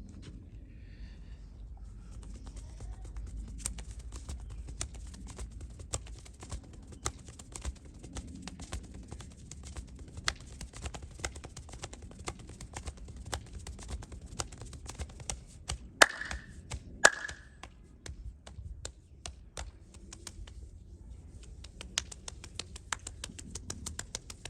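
A masseur's hands rapidly and irregularly tapping and striking a client's head and back, a fast run of sharp taps. About two-thirds through come two much louder sharp hits, a second apart.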